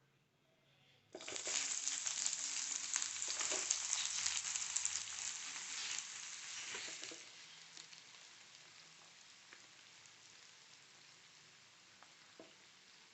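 Food dropped into hot oil in a pan sets off a sudden loud sizzle about a second in. The sizzle settles to a quieter steady frying about halfway through, with a few light clicks.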